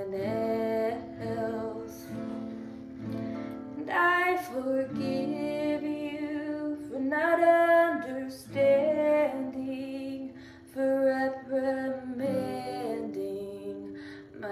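A woman singing a slow song with guitar accompaniment, in phrases with long held notes.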